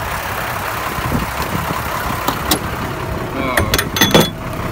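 Steady vehicle engine and road noise, with a few sharp clicks and knocks in the second half.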